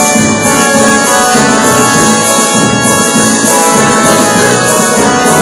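A municipal anthem playing loud and steady, an orchestral arrangement with brass.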